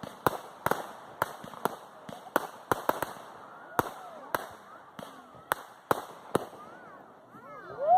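Fireworks going off: a run of sharp, irregular bangs, about two a second, that stops after about six seconds. Near the end, whistling fireworks start with several rising and falling whistles.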